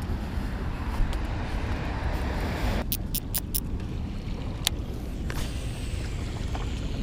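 Wind buffeting a chest-mounted camera's microphone, a steady low rumble, with a quick run of four sharp clicks about three seconds in and a single click a little later.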